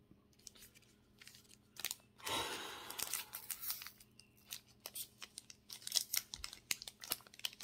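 Pokémon trading cards being handled: a brief rustling slide about two seconds in, then a run of small, light clicks and snaps as the cards are flicked and sorted.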